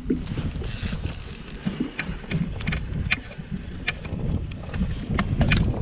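Gusty wind buffeting the microphone aboard a small fishing boat, a steady low rumble, with water lapping at the hull and scattered light clicks.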